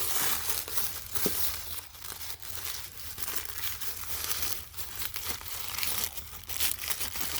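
Packaging rustling and crinkling in quick, irregular crackles as the wrapping around a cutlery set is handled and pulled open.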